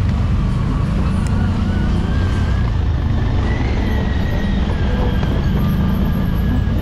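CFMoto CForce 1000 ATV's V-twin engine running steadily while under way, with a faint whine that rises and then falls back in the middle.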